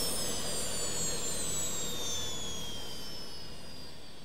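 Jet-like whoosh sound effect for a zoom transition: a rushing noise under several high whines that slowly fall in pitch, gradually getting quieter.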